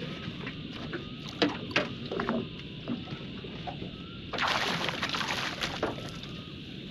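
Water splashing as a hooked flathead is netted at the side of the boat, a burst of about a second and a half in the second half. Two sharp clicks come earlier.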